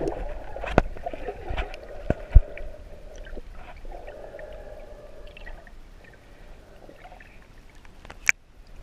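Muffled sound of water and bubbles picked up by a camera held under the sea surface, with a few sharp clicks, the loudest about two and a half seconds in.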